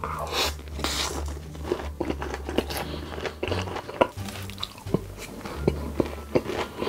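A person eating close to the microphone: crunchy bites and chewing, a quick irregular run of sharp crunches.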